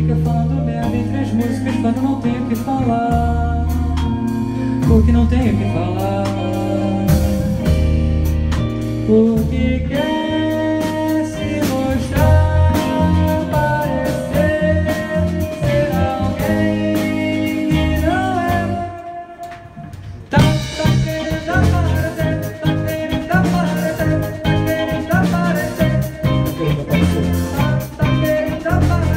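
Live rock band playing with a male singer: electric guitar, bass, drum kit and keyboards. About two-thirds of the way through the band drops out for a moment, then comes back in together.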